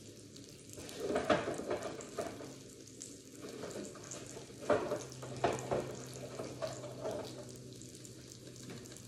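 Pancakes and sausage sizzling on a griddle set low, with scattered knocks and clatter of things being handled. A steady low hum comes in about halfway through.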